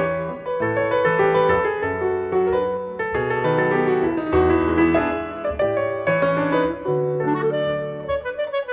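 Background music: an upbeat instrumental with piano or keyboard and a bass line.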